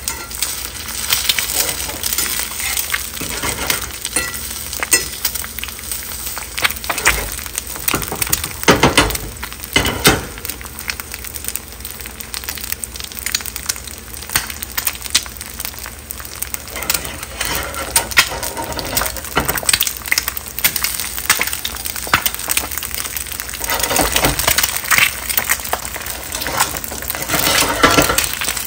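Eggs frying in hot oil in a carbon steel pan: a steady crackling sizzle with spitting oil, and a few louder pops near the middle.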